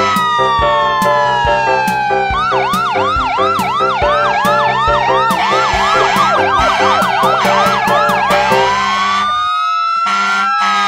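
Emergency-vehicle sirens over background music. A slow wailing siren rises and falls throughout. From about two seconds in, a fast yelping siren joins it, cycling about three times a second, and it stops near eight seconds. Music with a steady beat plays underneath.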